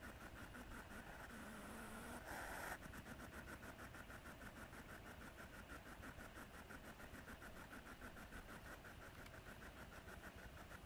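Near silence: a faint, even pulsing of about five beats a second runs throughout, with a brief soft hiss about two and a half seconds in.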